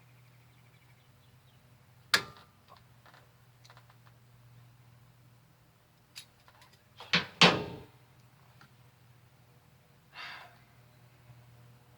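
A sharp knock about two seconds in, a louder rattling clatter of knocks around seven seconds, and a short scrape near ten seconds, over a faint steady hum.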